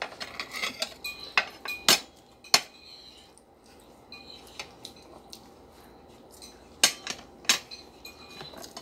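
Metal forks and spoons clinking and scraping against ceramic dinner plates while eating: scattered sharp clinks, several in the first few seconds and two more about seven seconds in, with a quieter stretch between.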